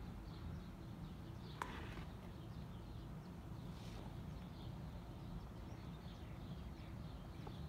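Faint birds chirping over a steady low rumble of outdoor background noise, with one sharp click about a second and a half in.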